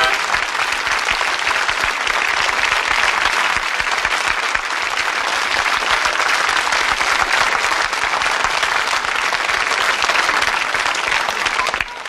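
Studio audience applauding: dense clapping that dies away near the end.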